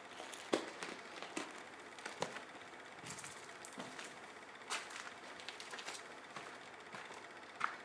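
Footsteps crunching on a grit- and debris-covered concrete floor, slow and irregular, roughly one a second, over a steady hiss.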